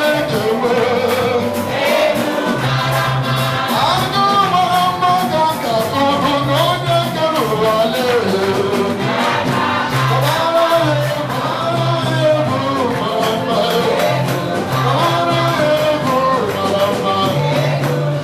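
Live gospel praise music: several voices singing a melody over a band, with a repeating bass note and busy percussion keeping the beat.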